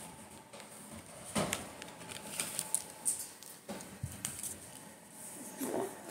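Irregular small clicks, taps and rustles of a hand handling a marker right next to the microphone.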